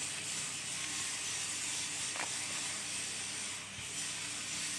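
Cordless drill-driver's small electric motor running steadily with a high whir.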